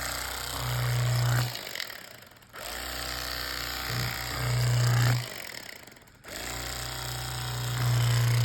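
An electric carving knife run in three short bursts, each switched on and off abruptly, its motor buzzing louder in the second half of each run as it slices through the pork loin.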